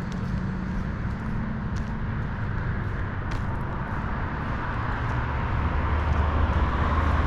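Road traffic: a steady rumble of vehicles, with one growing louder near the end as it approaches.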